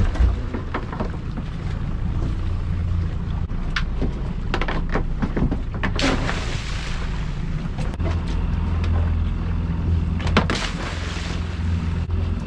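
Small boat's outboard engine running steadily at low revs, with knocks of gear on the boat and two splashy rushes as baited lobster pots are thrown over the side into the sea, about six and ten and a half seconds in.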